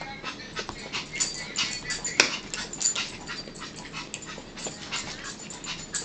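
A dog whining and yipping in short high-pitched squeaks, begging for food from the table. A single sharp click sounds about two seconds in.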